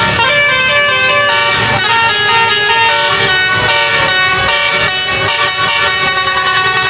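A bus's telolet basuri multi-tone musical air horn playing a tune, stepping quickly from note to note with several tones sounding together.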